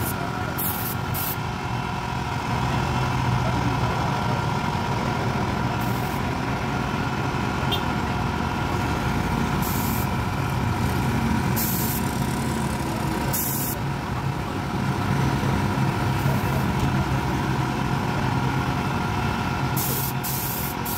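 Air compressor running steadily, with several short hissing bursts of compressed air from a paint spray gun as white paint is sprayed onto the furniture.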